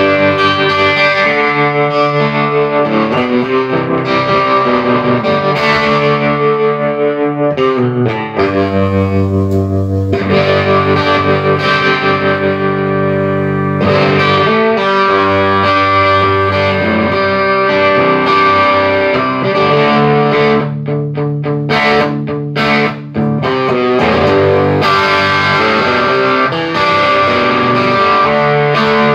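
Electric guitar played through a Vox AC30 CC2 valve amp, strumming overdriven chords with a stretch of short choppy stabs a little past the middle. This is the amp's sound test after repair, with its shorted filter caps, dead GZ34 rectifier and open caps in the Top Boost channel replaced.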